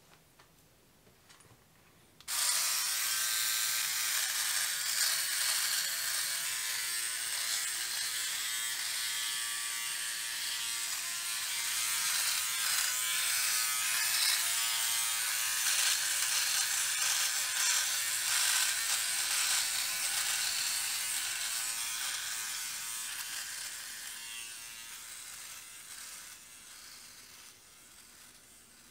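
Handheld electric beard trimmer switched on about two seconds in, buzzing steadily while cutting stubble. The buzz fades out over the last few seconds.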